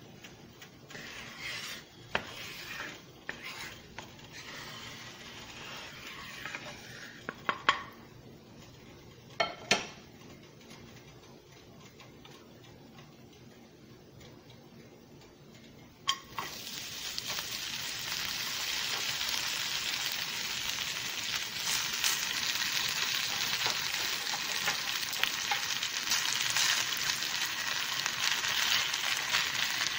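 Butter sizzling quietly in a hot nonstick frying pan, with a few sharp clicks. About halfway through, shredded raw potato goes into the pan and the sound jumps to a loud, steady frying sizzle.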